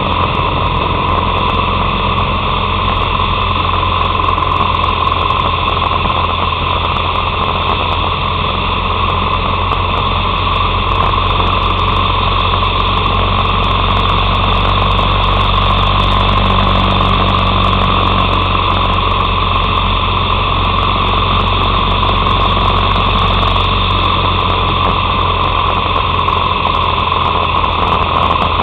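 Harley-Davidson Sportster 883's air-cooled V-twin engine running steadily while the motorcycle cruises along a road, with a slight rise in level about halfway through.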